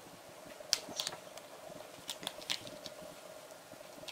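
A hard plastic toy capsule being handled and turned in the hands, giving a handful of scattered light clicks and taps over a faint steady hum.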